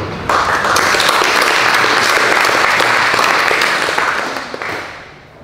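Audience applause that breaks out about a third of a second in, holds steady, and dies away over the last second.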